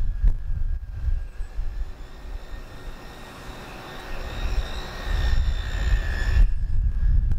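Rail grinder working a steel diamond crossing: a high steady whine over a hiss of abrasive on rail. The hiss grows louder and then stops abruptly about six and a half seconds in.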